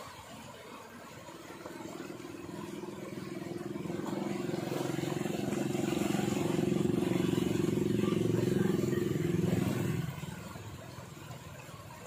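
A small engine running steadily. It grows louder over several seconds and cuts off sharply about ten seconds in, over the steady rush of floodwater pouring through a culvert.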